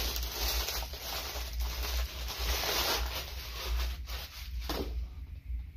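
Rustling of a bottle's cloth wrapping being pulled off, dying down after about five seconds with a few light knocks.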